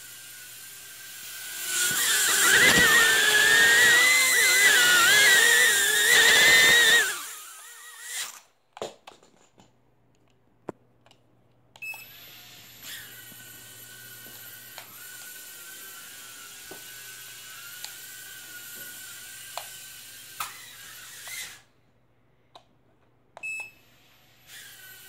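Mini quadcopter drone's propellers and motors whining. The whine gets much louder and wavers for about five seconds, then cuts out. It starts again steady about 13 s in, stops around 21 s, and resumes near the end.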